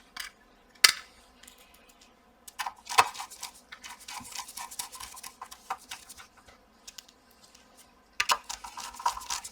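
Small clicks, taps and scraping of a screwdriver and small metal parts being handled while a graphics card is put back together. There are a few sharp single clicks, with busier stretches of rattling and scraping in the middle and near the end.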